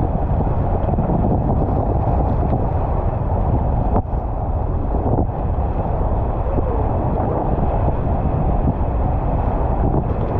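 Steady rush of high-water whitewater rapids surging around a kayak, with wind buffeting the microphone.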